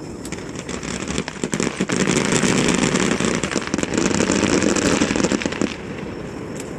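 Aerial fireworks crackling densely, a thick patter of many small pops that builds about a second in and dies away near the end.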